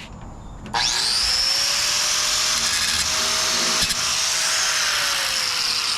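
A handheld electric power tool starts under a second in: its motor spins up quickly with a rising whine, then runs with a loud, hissing cutting noise. The whine slowly drops in pitch near the end as the tool slows.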